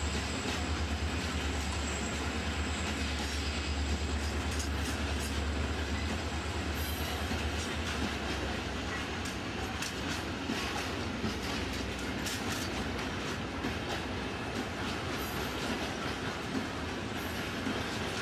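Freight train hauled by two Renfe class 333 diesel locomotives passing. A deep engine rumble fills the first half and fades as the locomotives move away. The covered freight wagons then roll by with a steady rattle and clatter of wheels over the rail joints.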